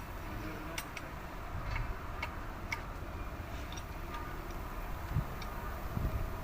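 Light metallic clicks and taps at irregular intervals, from truck gearbox parts being handled during disassembly.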